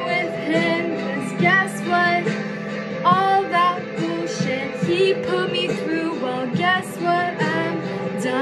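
A woman singing a song over an instrumental backing track.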